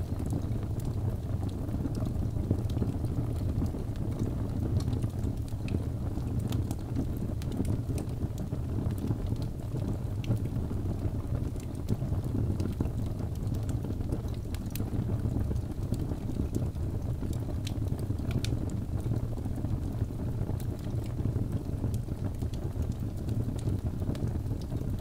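Log fire burning in a fireplace: a steady low rumble of flames with scattered small crackles and pops.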